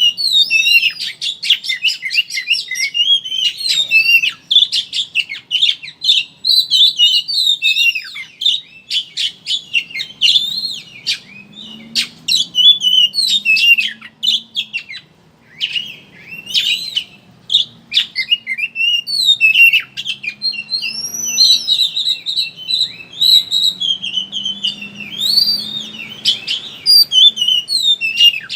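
Oriental magpie-robin (kacer) singing a rapid 'ngeriwik' chatter: fast high chirps, warbling trills and sharp clicks run together almost without a break, with a couple of short pauses about halfway through.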